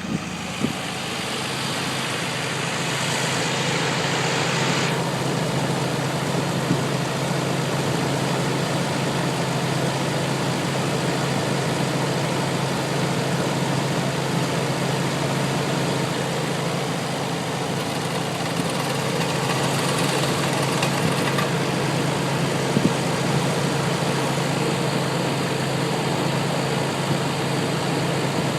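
Nissan 300ZX's VG30DE V6 idling steadily. Partway through comes an odd metallic "ting ting ting" from the driver's side, like a wrench dangled on the cam gear and let bounce, with no known cause.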